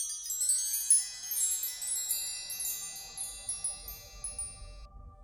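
Chimes ringing: many high, bell-like metallic notes struck in quick succession, thinning out and stopping shortly before the end.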